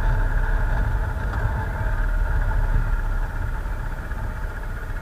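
Motorcycle engine running with wind rumble, heard from a camera mounted on the moving bike; the sound eases off a little after about three seconds.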